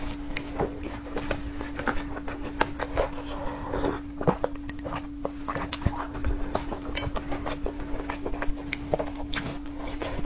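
Close-miked mouth sounds of a person chewing food: irregular wet smacks and clicks, several a second, over a steady low hum.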